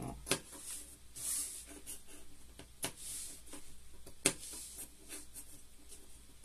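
Scissors snipping into nylon raincoat fabric, a few sharp snips with the fabric rustling between them.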